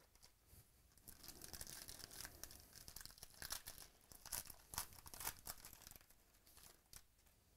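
Foil wrapper of a 2017 Spectra Football card pack being torn open by hand, a run of crinkling crackles and sharp rips that is loudest in the middle and fades as the cards are slid out.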